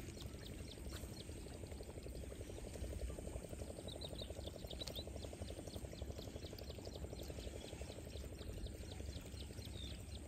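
Wetland animals calling: a fast, even pulsing trill that sets in a couple of seconds in, with short high chirps repeating a few times a second, over a steady low rumble.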